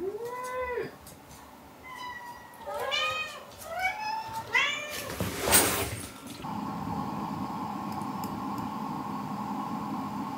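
Domestic cat meowing about five times in the first five seconds, several calls in quick succession, each rising and falling in pitch. A brief rushing noise follows about five seconds in, then a steady low hum.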